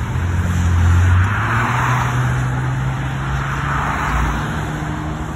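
Cars passing close by on a highway at speed, tyre and engine noise swelling twice, about two and four seconds in, over a steady low hum.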